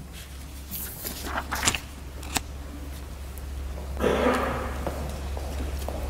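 Quiet church interior with a steady low hum, a few scattered clicks and light knocks, and a brief rustle about four seconds in as the mayor steps back from the lectern.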